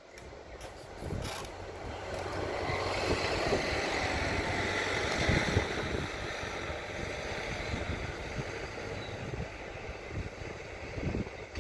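Motor vehicle noise, a rumble and hiss that builds over the first few seconds, is loudest about five seconds in, then eases off.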